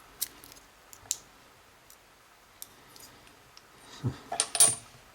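Small metal clicks and taps as tools work at a stubborn pin stack in the padlock's chamber, with a quick cluster of louder metallic clicks and clatter near the end.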